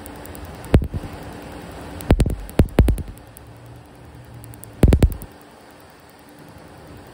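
Tattoo-removal laser firing pulses onto skin, each pulse a sharp snap. The snaps come singly and in short clusters about one, two to three, and five seconds in, over a steady machine hum.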